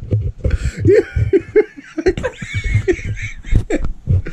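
People laughing helplessly in short, repeated bursts.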